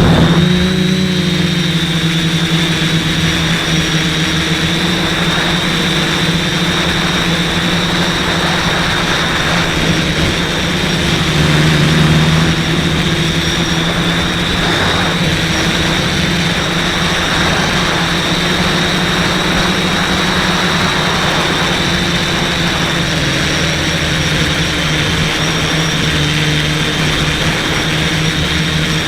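Quadcopter's Sunnysky 980kv brushless motors and propellers whining and buzzing steadily in flight, the pitch shifting a little with throttle about halfway through.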